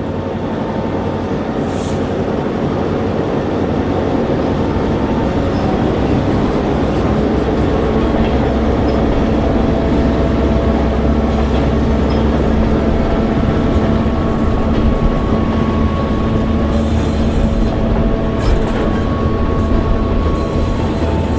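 Diesel freight train running steadily, with the locomotive's engine drone and the rolling of the cars, building a little over the first few seconds.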